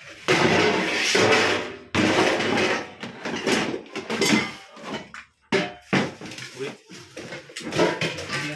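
Metal pots and kitchen vessels being moved about and knocked together, with scraping in the first few seconds and then a string of short clanks and knocks.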